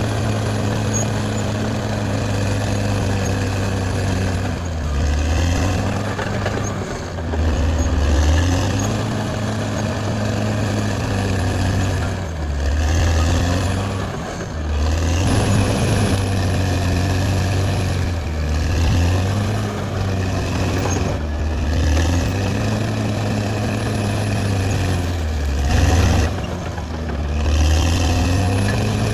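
Bulldozer's diesel engine running, its pitch sagging and recovering every few seconds as the load on it changes.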